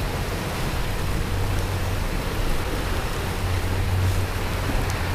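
Yamaha outboard motor running steadily at trolling speed, a low hum under the rush of water from the boat's wake.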